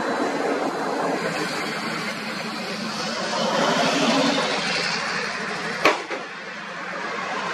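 Southwest Boeing 737's jet engines running as the airliner rolls along the runway: a steady rushing noise that swells a little midway. A single sharp knock comes about six seconds in.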